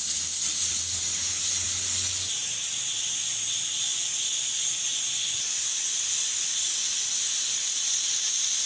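Pressure cooker venting steam through its weighted valve: a steady, high-pitched hiss with no breaks, the sign that the cooker is at pressure.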